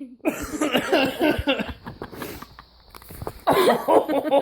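A man laughing uncontrollably, wheezing and gasping between short bursts; after a near-breathless lull about two seconds in, he breaks into a run of rapid, loud laugh bursts near the end.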